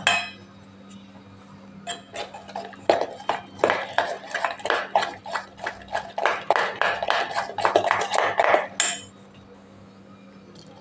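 Steel spoon clinking and scraping against a stainless-steel bowl as gram-flour batter is stirred with water, a quick run of strokes that starts about two seconds in and stops near the end.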